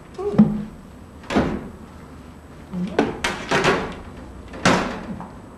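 A handful of separate knocks and clatters, about five over a few seconds, each dying away quickly.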